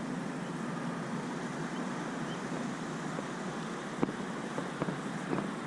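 Steady rushing background noise with a low hum, and a few light clicks near the end.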